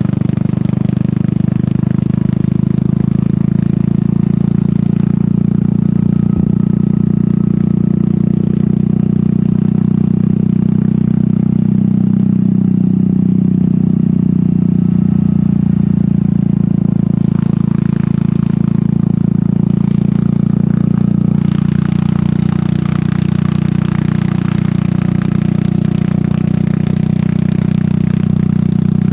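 Royal Enfield Meteor 350's single-cylinder engine running at a steady cruise through an aftermarket sport exhaust. A rushing hiss joins in over the last third.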